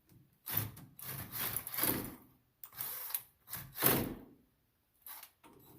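Impact wrench running in several short bursts, spinning out seized bolts that have just been freed.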